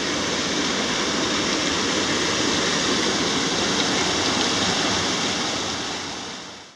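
Steady rush of water flowing through the lake's outlet control structure, fading out near the end.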